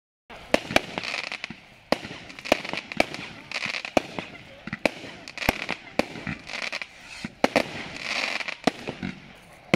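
Aerial fireworks going off: a string of sharp bangs, roughly one or two a second, with crackling hiss between them.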